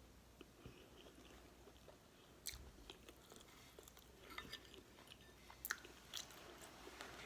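Quiet, close-miked chewing of a mouthful of beef stew: soft wet mouth sounds with a few sharp clicks.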